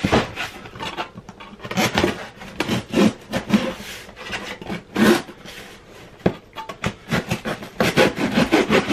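Knife blade sawing and scraping through the packing tape and cardboard of a parcel in short, irregular strokes, with a few louder strokes and a quick run of them near the end.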